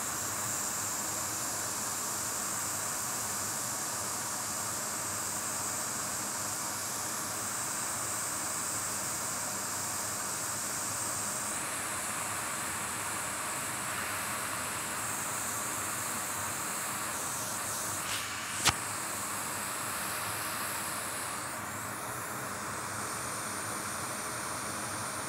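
Steady airy hiss of a hot air rework station blowing on a logic board to reflow a newly placed capacitor and inductor. Its tone shifts a few times, and one sharp click comes about two-thirds of the way through.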